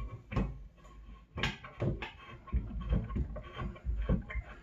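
A string of irregular knocks, clicks and dull bumps from handling around the sink as the hot water supply to a freshly repaired Delta tap is turned back on.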